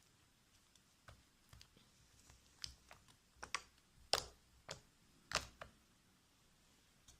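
Fluffy slime being squeezed and pulled by hand, giving a string of small irregular clicks and pops.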